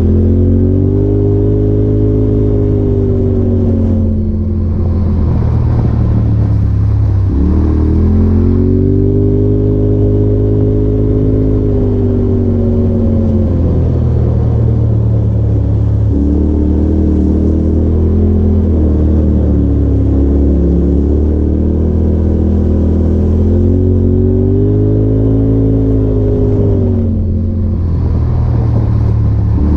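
Polaris RZR side-by-side's engine running under way, its pitch rising and falling in slow swells every few seconds as the throttle is worked along a rough trail.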